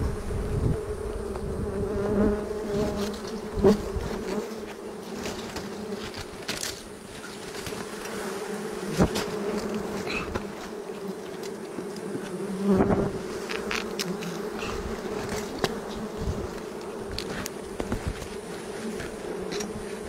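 Swarm of wild honey bees buzzing steadily around their comb, a continuous drone. A few sharp knocks break in, about four, nine and thirteen seconds in, from the climber moving on the trunk with his rope.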